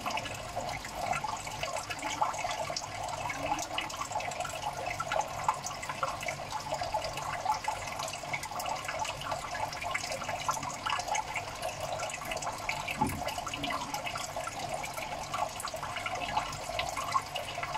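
Water trickling and bubbling steadily, full of small splashes and drips, as from a tank filter or aerator running.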